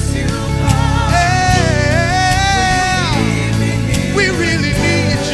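Gospel worship vocal group singing over instrumental backing; from about a second in, one voice holds a long note with vibrato before sliding down around three seconds in.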